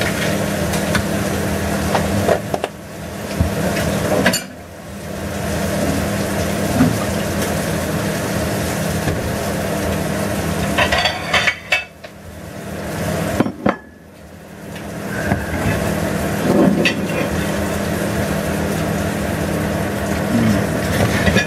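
Food sizzling in hot fat, with sharp clinks of metal tongs against pans and a steady low hum. The sizzle drops away briefly about three seconds in, and twice more past the middle.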